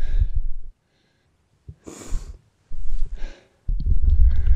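Heavy, breathy gasps of an exhausted hiker toiling through deep snow, several in a row, each with a low rumble on the microphone.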